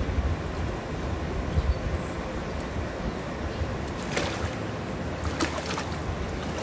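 A foot kicking and splashing in swimming-pool water: a splash about four seconds in and another a second or so later, over a steady background rush.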